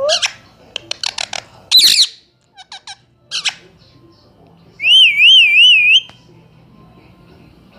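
Parrot giving a run of short squawks and chirps, then a loud whistle lasting about a second that wavers up and down in pitch.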